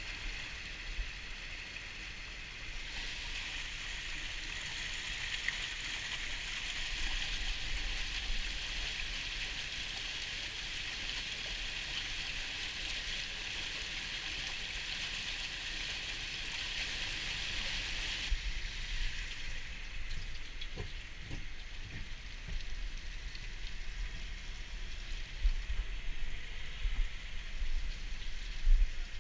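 Water rushing and splashing through a fish pump's dewatering box, pouring over a perforated grate carrying juvenile salmon. The steady rush cuts off suddenly about two-thirds of the way through, leaving a low rumble and a few knocks.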